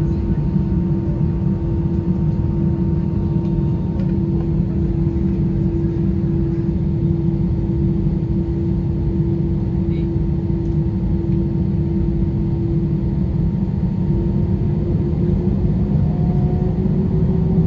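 Airbus A320-214 cabin noise from its CFM56 jet engines at low ground power: a steady low rumble with a steady hum that rises slightly in pitch over the last few seconds.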